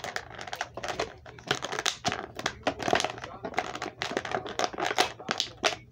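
Action-figure packaging crinkling and crackling as it is handled and opened, a dense run of irregular crackles and clicks that stops just before the end.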